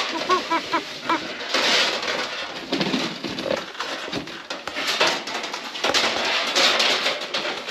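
Metal fish tape (electrician's snake), with an LED strip taped to it, scraping and rustling as it is pulled through the wall cavity and out at a receptacle box, in several uneven bouts. A quick run of short squeaks comes in the first second.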